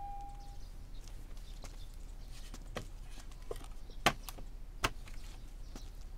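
Slow, irregular steps: light knocks every half second or so, with two sharper clicks about four and five seconds in.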